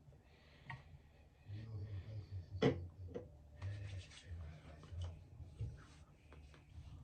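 Soft rubbing and handling noises of a skincare product container and hands close to the microphone, with a sharp click a little under three seconds in, like a cap or lid being opened.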